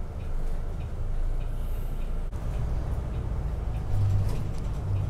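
City bus engine running, heard from inside the cabin at the front: a steady low hum that grows stronger about four seconds in as the bus gets moving.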